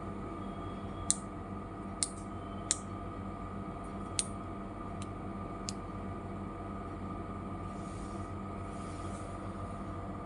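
About six small sharp clicks over the first six seconds as small metal coin charms are pressed onto a plastic hair clip and fingernails tap against it, over a steady hum.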